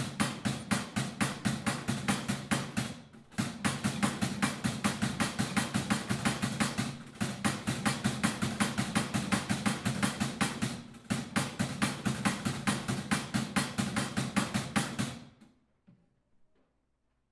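Wooden Good Friday clapper (klepáč) knocking rapidly, about four or five sharp wooden knocks a second, in runs of roughly four seconds with brief breaks, then stopping near the end. This is the Easter clapping that stands in for the silent church bells on Good Friday.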